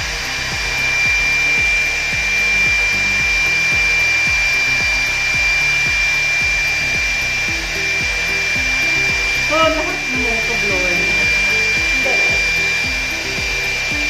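Small handheld hot-air blower (heat gun) running steadily, with a high motor whine held on one pitch over the rush of its airflow. It is being used to heat-shrink plastic seals onto jar lids.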